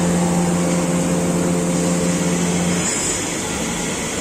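Hartford VMC-1600A CNC vertical machining center running: a steady low whine that cuts off about three seconds in, over a constant hiss from the machine.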